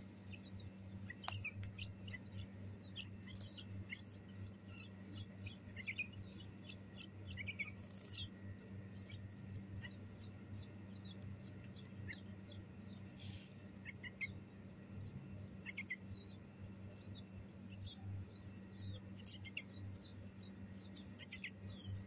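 Bulbul nestlings giving many short, high chirps while begging with gaping bills, over a steady low hum.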